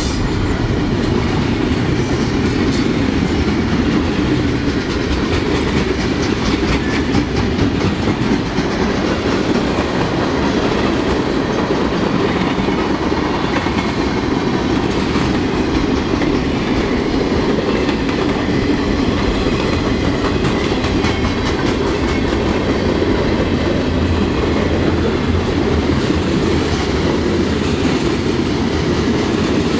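Covered hopper and tank cars of a freight train rolling past at speed: a steady, loud rumble of steel wheels on rail, with runs of rapid clacking as the wheels pass over rail joints.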